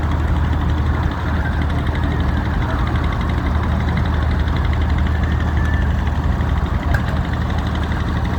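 Case IH 1255 XL tractor's six-cylinder diesel engine running steadily.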